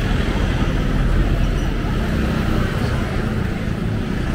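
Street traffic: vehicle engines and tyres running past in a steady low rumble, with one engine's hum coming up about halfway through.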